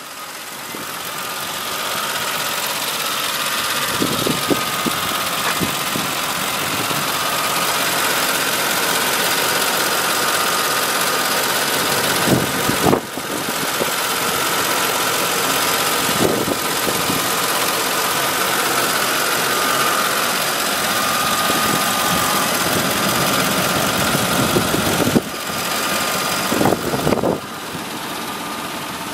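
A 2005 Ford F-150's 5.4-litre Triton V8 idling steadily, heard from over the open engine bay, with a few brief knocks.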